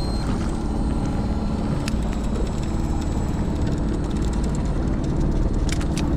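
Fishing boat's engine running steadily with a low drone, with a few light clicks about two seconds in and near the end.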